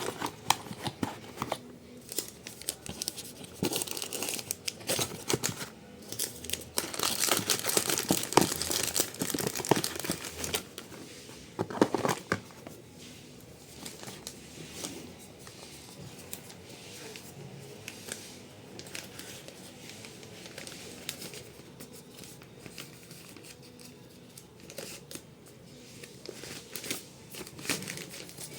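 Packaging being handled: plastic wrappers and bags crinkling and rustling, with scattered small clicks and knocks. Busiest in the first half, lighter and sparser after that.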